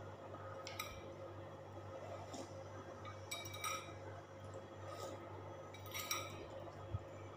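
Sips of mussel broth from a ceramic bowl, with light clinks of a metal spoon against the bowl, three short bursts about a second in, midway and about six seconds in, over a low steady hum.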